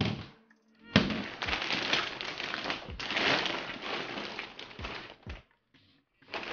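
Plastic courier mailer and the plastic bags inside it crinkling and rustling as they are handled, starting with a sharp click about a second in and stopping abruptly a little after five seconds.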